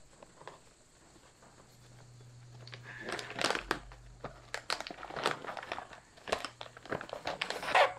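Crinkling of a freeze-dried meal pouch as it is pulled open and handled, a series of crackly rustles starting about three seconds in, loudest near the start and at the very end.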